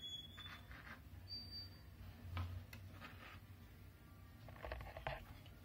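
Kitchen knife cutting through the crust of a slice of white bread against a plastic cutting board, in a few short, faint strokes.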